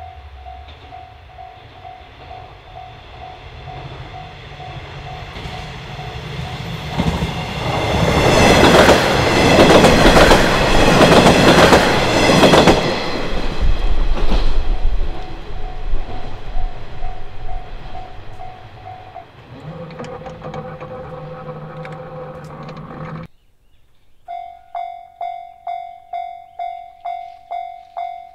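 Japanese level-crossing warning bell ringing in a steady repeating ding while a diesel train approaches and passes over the crossing, the train loudest from about 8 to 13 seconds in. About 23 seconds in the sound cuts to another crossing bell with a sharper, slower ding.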